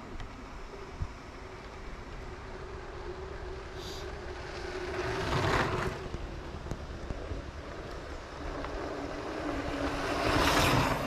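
Wind rushing over the microphone and mountain bike tyres rolling over the trail on a descent, the rush swelling about halfway and again near the end.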